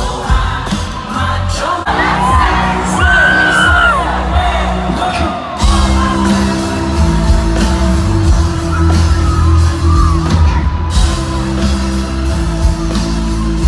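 A live band playing loudly with a lead singer, heard through a phone's microphone from within the audience, with the crowd yelling and whooping along.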